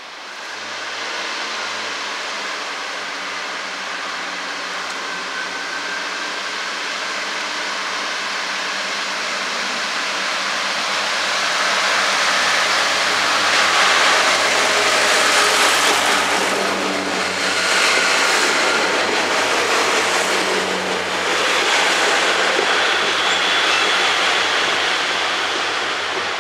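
Class 142 Pacer diesel railbus moving through the station, its underfloor diesel engine running with steady wheel and rail noise. The sound swells and grows louder about halfway through and stays loud.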